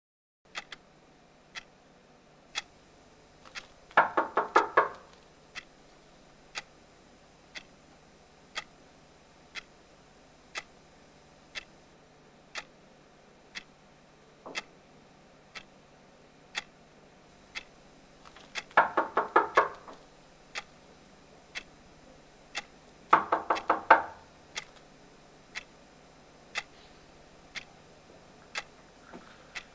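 Clock ticking about once a second, with an alarm going off in three short bursts of rapid pulsing: once about four seconds in, then twice more later, close together.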